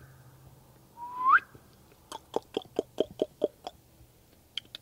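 A person whistles once, a short rising whistle, then makes a quick run of about eight mouth clicks, about five a second, with a couple more near the end: calling a German Shepherd puppy to come.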